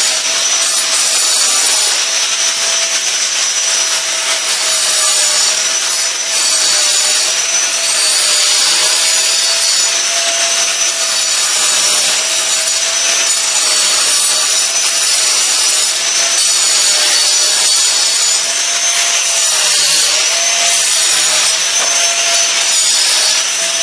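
Angle grinder cutting into a concrete threshold, its disc running steadily under load with a whine whose pitch dips and recovers slightly as the cut is pressed.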